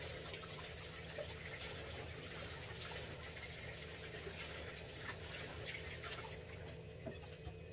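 Kitchen tap running steadily, water filling a vessel, with a few faint knocks from handling.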